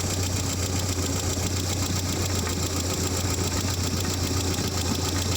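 Dacia/Renault 1.6 petrol engine idling steadily. The light clack-clack that the mechanic puts down to a faulty hydraulic lifter has faded away as the engine runs.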